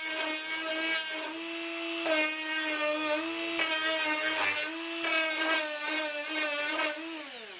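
Grinder beveling the edges of aluminum stock: a steady, high motor whine, with a harsh grinding hiss that cuts in and out as the disc bites the metal in passes. About seven seconds in, the motor winds down, its pitch falling.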